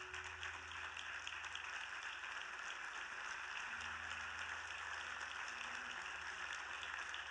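Congregation applauding steadily in a large hall: a dense, even patter of many hands clapping.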